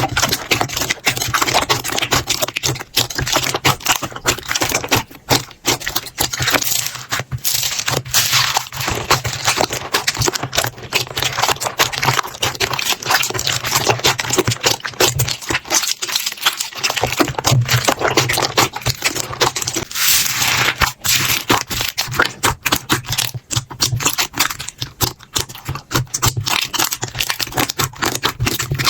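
Slime being squished and worked by hand, a dense, continuous run of small clicks, pops and crackles.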